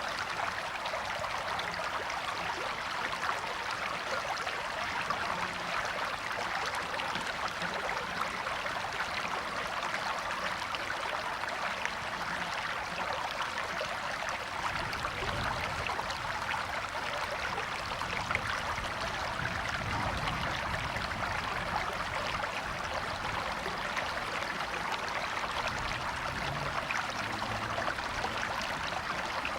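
River water running over rocks, a steady rushing and burbling with no breaks.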